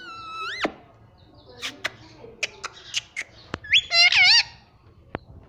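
Indian ringneck parakeet calling: a rising call at the start, then a run of sharp clicks, and a loud wavering squawk about four seconds in.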